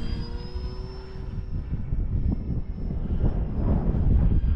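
Electric motor and propeller of an E-flite Valiant RC plane, a high whine that climbs slightly and then holds steady as it powers back up after an aborted landing. Heavy gusty wind rumbles on the microphone underneath it.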